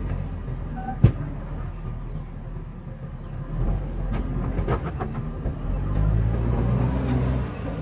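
JCB backhoe loader's diesel engine running as its front bucket tips a load of dirt into a dump truck, with a sharp knock about a second in and a patter of soil and stones landing in the truck bed around four to five seconds in. The engine picks up again near the end as the empty bucket is pulled back.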